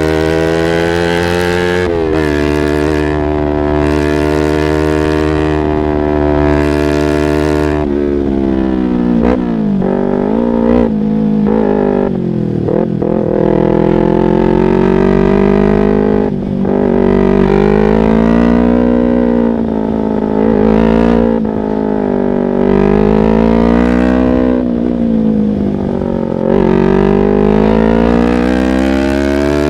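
Yamaha R25's parallel-twin engine running through a Proliner aftermarket exhaust while the bike is ridden. The engine note holds high and nearly steady for several seconds, then rises and falls repeatedly as the throttle opens and closes and the gears change.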